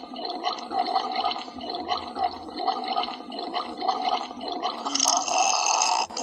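A woman's hungry stomach growling: a continuous run of watery gurgles and rumbles, with a stronger burst about five seconds in.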